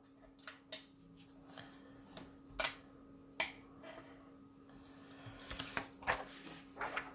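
Craft knife cutting photo paper on a cutting mat, with the paper being handled: a handful of short, separate scratching strokes over a faint steady hum.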